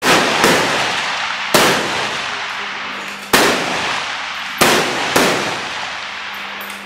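Six rifle shots from 6PPC benchrest rifles along the firing line, fired at uneven intervals by different shooters. Each crack rings out and dies away over a second or more.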